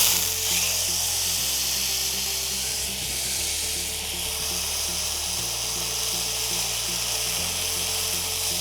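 Marinated chicken steak sizzling in an oiled grill pan, a steady hiss, over background music with a low bass line that changes note every couple of seconds.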